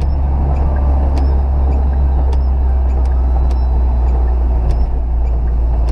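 Inside a square-body Volkswagen Gol driving on a wet highway: a steady, loud low drone of its 1.6 CHT engine and tyres on the wet road, with light scattered ticks over it.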